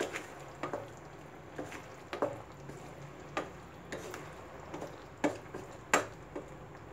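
Spatula stirring vegetable manchurian balls through a thick, steaming sauce in a nonstick wok. It makes short knocks and scrapes against the pan about every half second to second, the strongest near the end, over a faint simmer.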